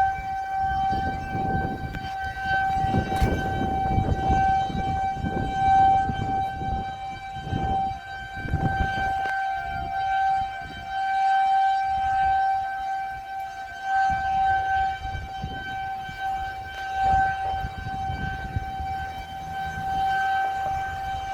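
Outdoor tornado warning siren sounding a steady, single-pitched wail that swells and fades in loudness, over a low rumbling noise that comes and goes.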